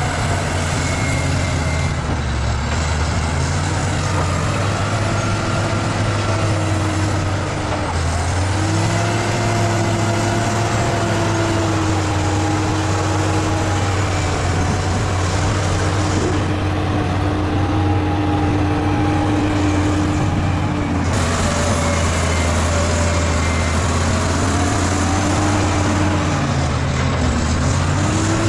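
Bulldozer's diesel engine running steadily under load, its pitch drifting slightly up and down as it works.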